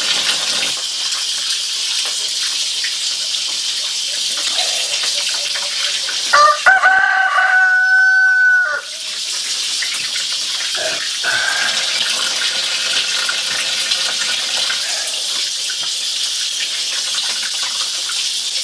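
Tap water running into a stainless-steel sink while chicken meat is rinsed under it. About six seconds in, a rooster crows once, one long call of about two seconds that stands out above the water.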